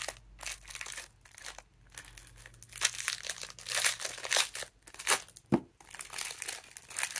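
Clear plastic wrapper crinkling and tearing as it is peeled off a roll of washi tape, in irregular crackly bursts that are loudest in the middle.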